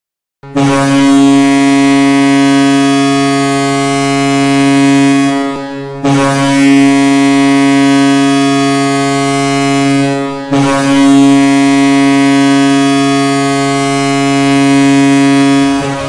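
Hockey goal horn sounding three long blasts, each about five seconds and back to back, at one low, steady pitch with a buzzy, many-overtoned tone.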